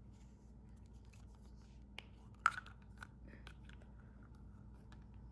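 Faint clicks and scrapes of a small plastic toy drink capsule being handled and opened, with one sharper click about two and a half seconds in.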